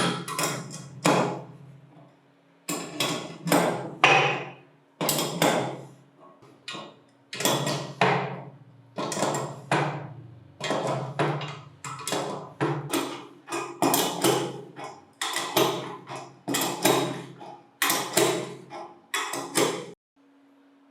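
Repeated hammer blows, about two a second in short runs with brief pauses, each ringing briefly; they stop abruptly near the end.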